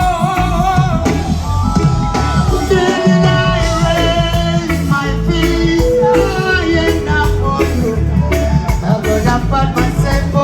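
Loud music with a singing voice over a steady beat, played over a festival sound system during a sound check.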